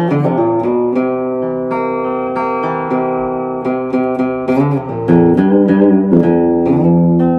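Telecaster electric guitar played through an amplifier on its bridge pickup: picked single notes and chords, with a louder chord about five seconds in.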